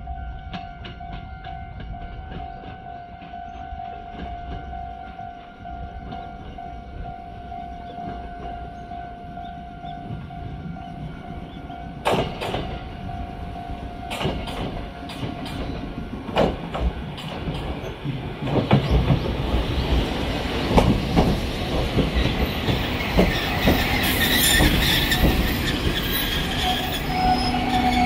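Choshi Electric Railway 2000 series electric train pulling into a station. About halfway through, sharp clacks of its wheels over the rail joints start. The running noise then grows steadily louder as it comes alongside, with a high squeal as it slows near the end.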